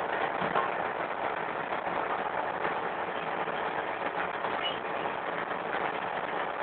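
Excavator's diesel engine running steadily while it works.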